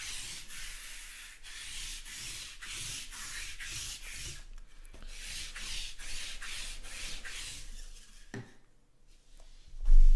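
Lint roller rolled back and forth over a cloth table covering, a quick run of rubbing strokes that stops about eight seconds in. A loud thump comes near the end.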